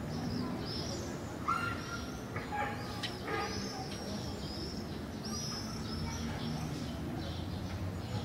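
Small birds chirping: many short, high chirps repeating throughout, with a few lower calls about two seconds in, over a steady low background hum.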